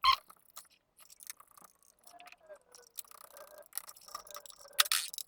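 Small screwdriver clicks and scrapes as screws are driven to fasten a laptop's copper heatsink plate onto the motherboard. There is a sharp click at the start and another near the end.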